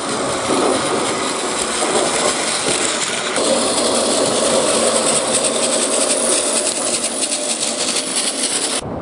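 Shinkansen bullet train running past at speed: a loud, steady rushing of wheels on rail and air. The sound cuts off abruptly near the end.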